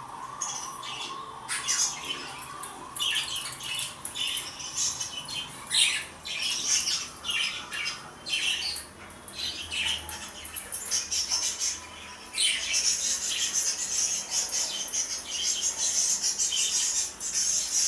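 A flock of lovebirds and finches chattering: a steady jumble of short, high squawks and chirps that gets busier about two-thirds of the way through.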